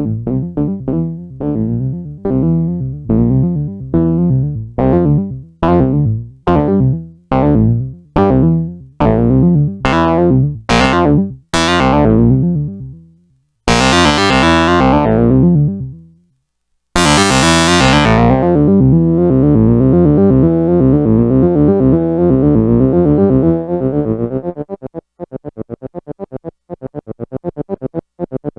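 Arturia MicroBrute analog synthesizer playing a sequenced chiptune-style pattern. Fast repeated notes grow steadily brighter as the filter opens over about twelve seconds. Two long notes then fall from bright to dull, a held buzzing passage follows, and near the end comes a quick run of short staccato notes.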